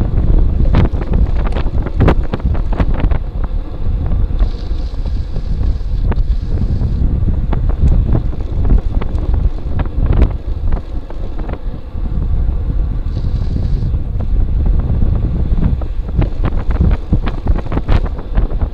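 Wind buffeting the microphone of a bike-mounted camera while riding, a loud low rumble throughout, with frequent sharp clicks and knocks scattered through it.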